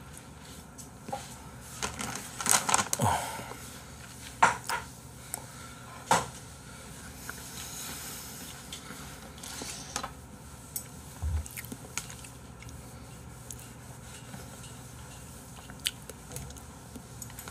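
Bowls, a plate and a spoon clinking and knocking together as the table is cleared after a meal: a series of separate clatters, busiest in the first six seconds, then a few scattered light knocks.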